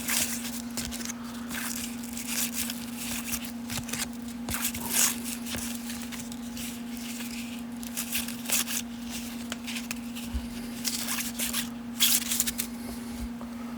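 Baseball cards and a pack wrapper being handled: scattered rustles, crinkles and short scrapes. A steady low hum sits underneath.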